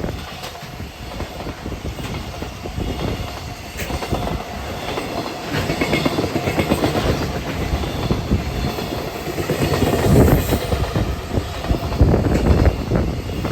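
Freight train running through a station at speed, its wagon wheels clacking rapidly over rail joints, with faint high-pitched wheel squeal; the sound swells about ten and twelve seconds in.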